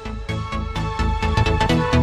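Electronic dance music with a steady, fast beat, growing louder.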